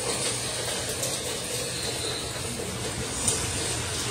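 Steady rain falling, with water streaming and dripping off the edge of a corrugated roof, and a single sharp tap about three seconds in.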